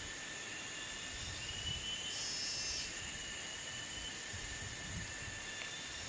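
Insects singing steadily in several high, even tones, with a louder shrill band joining for about a second near the middle, over faint low rumble.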